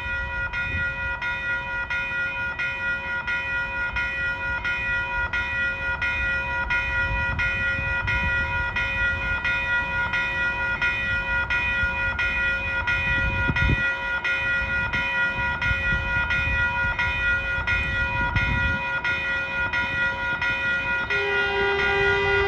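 A train's warning bell rings steadily, struck about twice a second, as a Caltrain electric train pulls into the station over a low rumble of wheels and motors. A lower steady tone sounds briefly near the end.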